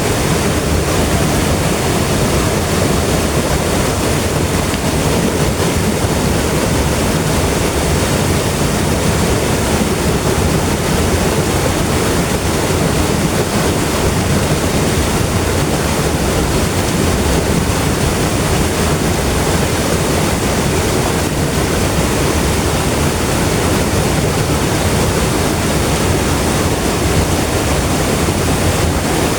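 Clear river flowing over rocks, a steady, even rush of water.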